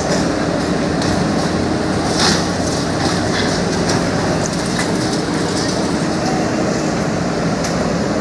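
Diesel engine of heavy demolition machinery running steadily, with a few sharp knocks.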